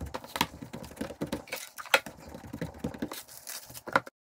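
Fingertips pressing and stretching bread dough flat on a wooden tabletop, giving a run of irregular light taps. The sound cuts off abruptly near the end.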